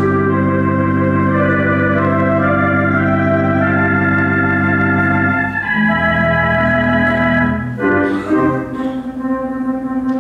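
Theatre organ playing live silent-film accompaniment: long held chords over a deep bass, moving to a new chord about halfway through, then the bass falls away and the playing turns lighter and higher near the end.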